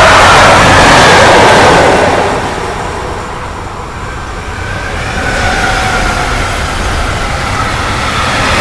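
A diesel locomotive hauling wagons passes close by, loudest in the first two seconds, then fades away. About five seconds in, the noise rises again as an electric locomotive arrives with an intermodal freight train and its wagons start rolling past.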